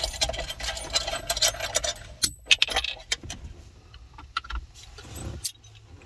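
A metal collar nut being spun off the threaded body of a combination lock by hand, with quick small metallic clicks and rattles, then a few scattered clicks and knocks as the lock is pulled out of the steel safe lid.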